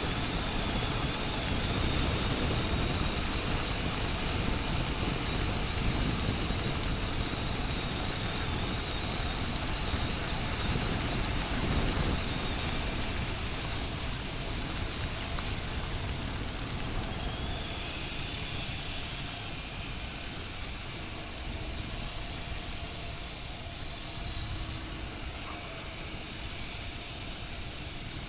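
Motorcycle engine running under way, with steady wind and road noise on the helmet or bike microphone; a little quieter in the second half.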